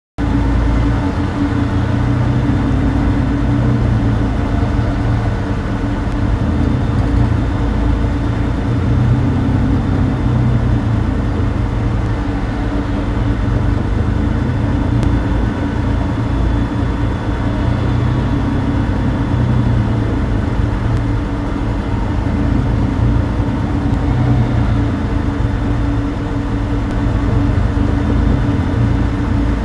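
Star Wars Clone Turbo Tank (HAVw A6 Juggernaut) interior engine noise sound effect, looped: a steady, deep engine hum and rumble with slow swells in the low drone. It cuts in abruptly out of silence.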